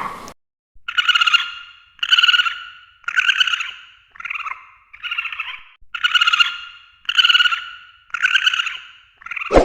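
Red panda calling: a series of about nine short, evenly spaced calls, roughly one a second, each under a second long. A louder, lower sound cuts in at the very end.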